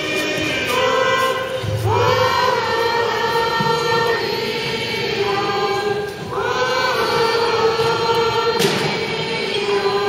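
A Native American canoe family sings a song together in long held phrases. Each new phrase opens with a rising slide into the note.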